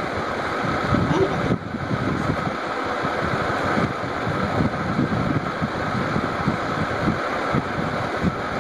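A steady mechanical hum.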